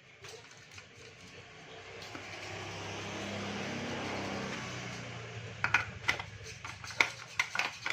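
A passing vehicle swells and fades over a few seconds. Then come sharp metallic clinks and knocks of tools and parts as the scooter's automatic clutch assembly is refitted.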